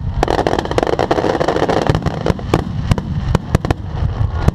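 Fireworks finale barrage: many sharp bangs following one another rapidly and irregularly, with a dense crackling hiss during the first couple of seconds.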